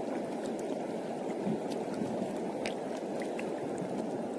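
Steady rushing wash of shallow sea water over rocks and reef, an even noise without a beat, with a few faint ticks.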